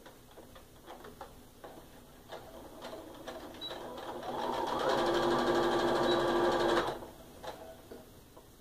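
Sewing machine stitching a seam: a few light clicks first, then the motor speeds up with a rising whine, runs fast and steady for about two and a half seconds, and stops suddenly.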